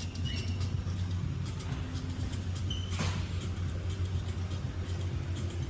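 Steady low rumble or hum, with a few faint clicks, two short high squeaks and a brief scrape about three seconds in.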